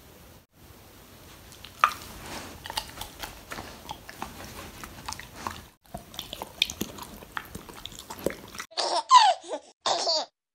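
A sleeping Doberman grinding its teeth: a run of small clicks and ticks, then a few louder squeaky scrapes near the end.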